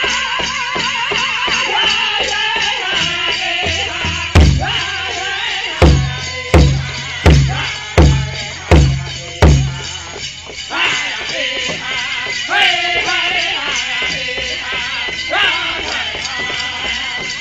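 Powwow drum group singing over a steady big-drum beat, with bells on the dancers' regalia jingling. A little over a third of the way in come seven loud, heavy drum strikes, the last six about three every two seconds: the hard beats of the song. Then the steady beat and singing resume.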